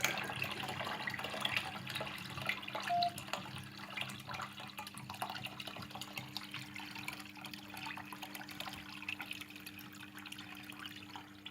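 The last water draining from a washing machine's opened drain-pump filter housing, a trickle and drips that slowly die away. A faint low steady hum runs underneath.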